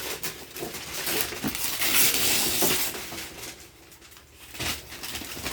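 Gift wrapping paper rustling and tearing as a present is unwrapped, loudest about two seconds in, then dying down to a few crinkles.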